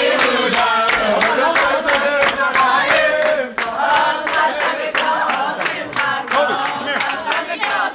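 A crowd of people singing together loudly and clapping along in a quick, steady beat.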